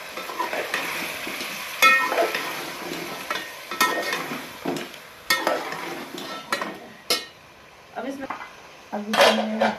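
A spoon stirring and scraping bhuna gosht in a cooking pot, knocking against the pot every one to two seconds, over the steady sizzle of the meat frying.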